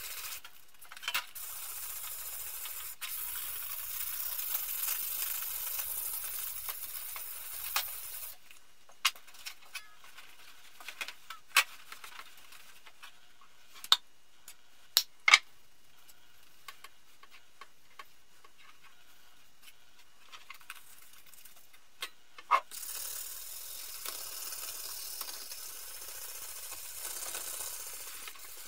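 Hand scrubbing of a steel saw blade with an abrasive pad, a steady rasping hiss. It stops after about eight seconds and returns near the end. In between is a quieter stretch with scattered sharp clicks and taps as an oil can is squeezed over the blade.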